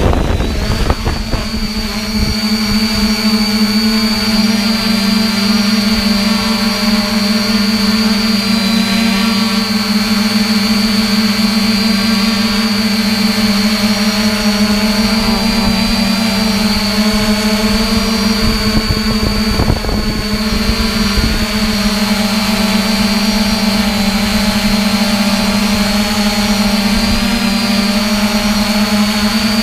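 3DR Iris+ quadcopter's four electric motors and propellers humming steadily, heard close up from the camera on the drone as it lifts off and hovers, with a thin high whine above the hum.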